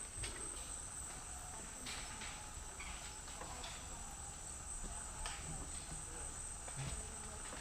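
Rainforest insects keeping up a steady high-pitched drone, with scattered light clicks and taps and a low rumble underneath.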